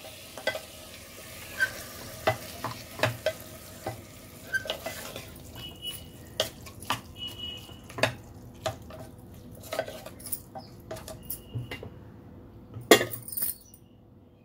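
Wooden spatula stirring and scraping raw mutton around a pressure cooker pot, with many short knocks against the pot over a faint sizzle as the meat sautés. One louder knock comes near the end.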